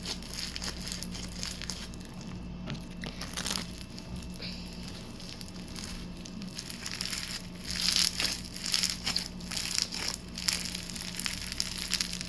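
Slime with mixed-in sprinkles being squished and stretched by hand, giving a run of crackling, crinkly clicks that grow busier about eight seconds in.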